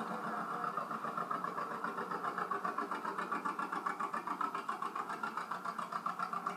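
Antique farm tractor engines running as the tractors drive past, a steady chugging pulse of about five to six beats a second.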